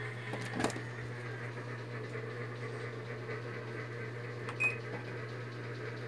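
A single short electronic beep from a Midea top-loading washing machine's control panel a little before the end, over a steady low hum, with a brief click about half a second in.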